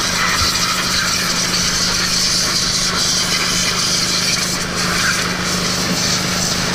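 A 2400 PSI pressure washer running steadily, its motor humming under the constant hiss of the high-pressure water spray hitting the dirt bike.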